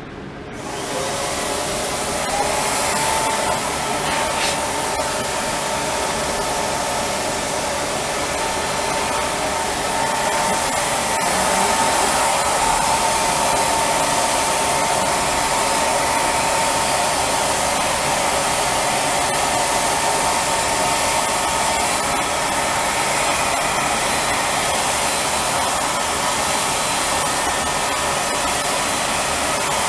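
Spray-tan machine's turbine blower running steadily, pushing air and tanning solution through the hose and hand-held spray gun as a continuous airy rush. It comes on in the first second, then holds steady.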